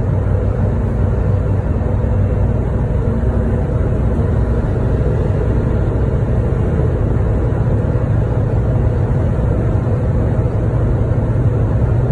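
Steady low rumble of a car's engine and tyre noise, heard from inside the cabin while the car drives along a highway.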